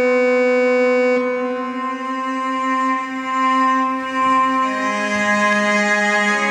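Slow instrumental music with long held bowed-string notes; the notes change pitch about a second in and again near five seconds.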